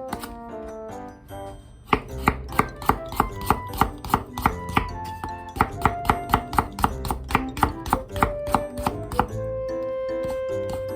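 Kitchen knife chopping on a cutting board, quick even strokes of about four a second, stopping about two seconds before the end. Background music plays throughout.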